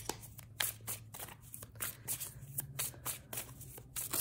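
A deck of tarot cards being shuffled by hand: a quick, irregular run of card riffles and slaps, several a second.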